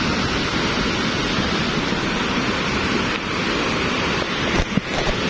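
Volcanic lahar (mudflow) from Mount Semeru rushing through a breached levee and carrying large boulders: a loud, steady rush of churning water and debris, with a couple of short knocks near the end.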